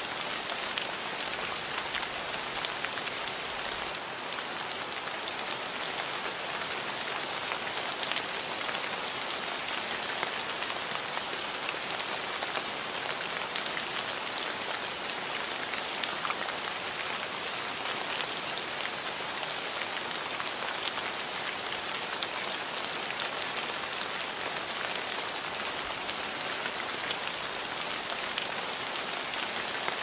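Steady rain falling on a surface: an even hiss dense with many small, separate drop impacts.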